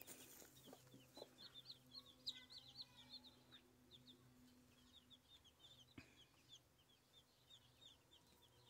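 Faint, continuous peeping of a brood of newly hatched chicks: many quick, high chirps that each fall in pitch, overlapping one another around their mother hen.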